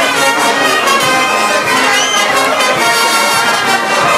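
Brass band playing dance music, trumpets and trombones holding long notes.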